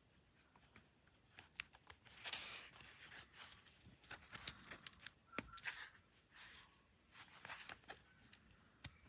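Paper and packaging being handled: short rustles and crinkles with scattered light clicks and taps, the sharpest click about five seconds in.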